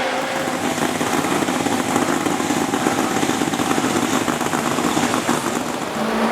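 Ferrari 512 M's 5-litre V12 race engine running with a rapid, rough pulsing. Near the end a steady engine note comes in.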